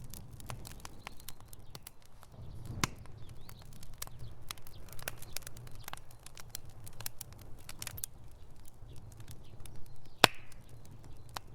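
Campfire burning, with frequent irregular crackles and snaps over a low steady rumble of the flames. A sharp pop about ten seconds in is the loudest, with another clear pop near three seconds.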